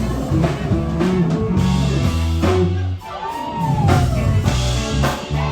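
Live R&B band music, with a bass line, drum kit and guitar playing, and a brief drop in loudness about halfway through.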